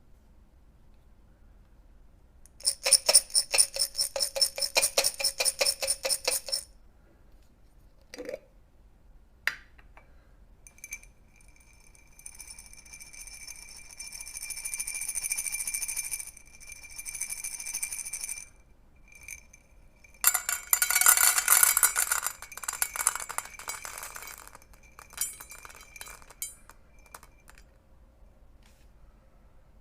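Dry cat food kibble rattling in a hard container: a burst of fast rhythmic shaking about three seconds in, a steadier stream of clinking kibble near the middle, then another dense burst of rattling and a few scattered clinks near the end.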